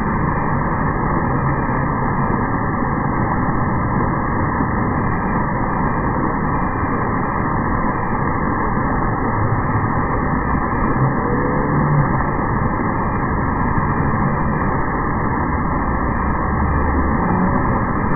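Steady rush of water pouring down from an overhead splash-pad fountain and splashing into shallow water.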